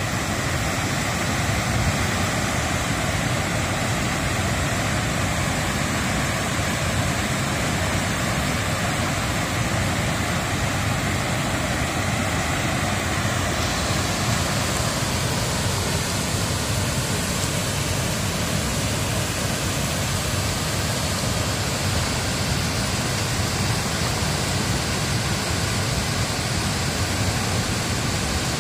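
Steady rush of water from a broad waterfall and the foaming rapids tumbling over boulders below it. The hiss grows a little brighter about halfway through.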